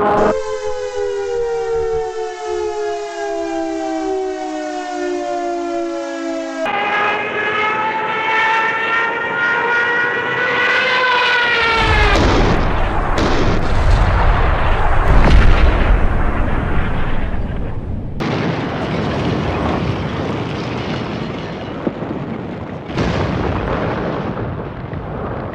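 A long falling whistle for about six seconds, then a rising siren-like wail for about five seconds that ends in a loud explosion about twelve seconds in, followed by heavy rumbling blast noise.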